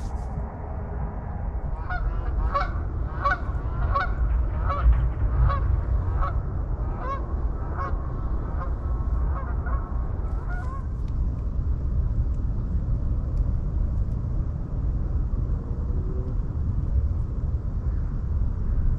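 Geese honking, a string of short calls for about nine seconds that then stop, over a steady low rumble of wind.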